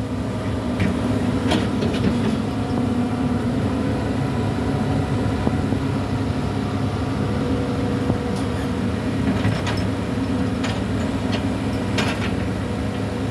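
Hitachi hydraulic excavator's diesel engine running steadily under working load as the boom and bucket move, with a few short sharp knocks scattered through it.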